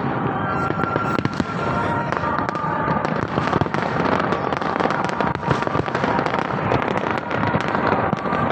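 Fireworks display: a continuous barrage of rapid bangs and crackling reports, densely overlapping.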